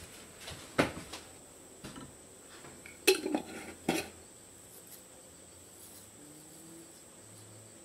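A handful of sharp clinks and taps of kitchenware: a spoon knocking against a cut-glass bowl on a stainless steel counter. The loudest comes about three seconds in, and the clinks stop after about four seconds.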